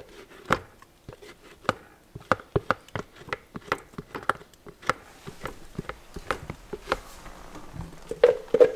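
A kitchen utensil tapping and scraping against a mixing bowl, with irregular sharp clicks several times a second, as the last of a wet banana-and-egg batter is scraped in.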